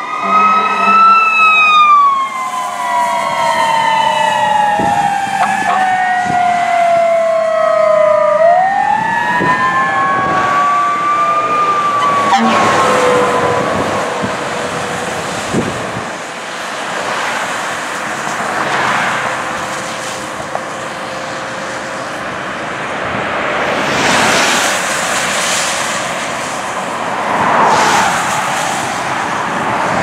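Fire truck sirens: a Federal Q mechanical siren winds slowly down from its peak pitch over several seconds, winds up again and falls away, with an electronic siren wailing alongside. After about fourteen seconds the sirens give way to steady road noise from passing traffic.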